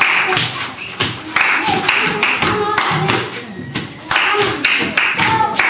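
Hand-clapping game: two girls clap their own hands and slap each other's in a quick, uneven rhythm, with girls' voices chanting along.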